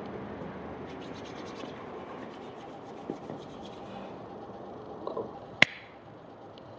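Hands rubbed briskly together, a quick, even rasping for a few seconds, then a single sharp click.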